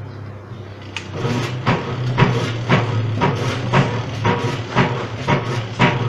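Top-load washing machine's drive motor starting about a second in and running with a steady low hum, a sharp knock about twice a second from the drive as it agitates. With its replaced control board it now turns both ways.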